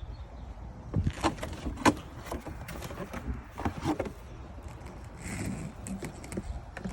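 Handling noise of vacuum attachments: a quick run of clicks and knocks, with a brief rustle a little after the middle. No motor is running.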